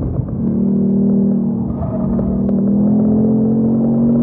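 Ford Mustang Mach 1's 5.0-litre V8 pulling in third gear, its revs climbing steadily, heard from inside the cabin.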